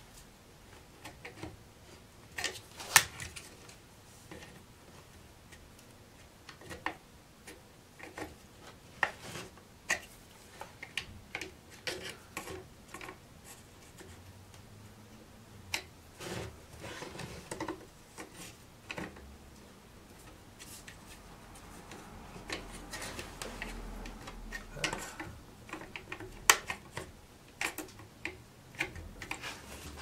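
Small screwdriver working at the plastic power switch and its retaining clips in a Bosch 1617 router's motor housing: scattered sharp clicks and taps with light scraping and rubbing, one louder click about 3 s in.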